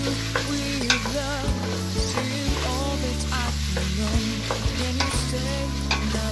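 Wooden spoon stirring diced potatoes and minced meat in a stainless steel pot, with repeated scrapes and knocks against the pot and a sizzle from the frying food. Background music with sustained notes plays underneath.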